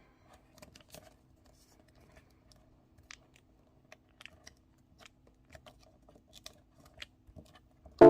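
Small sheet of origami paper being handled, folded and creased: faint, scattered rustles and soft clicks. Music starts right at the end.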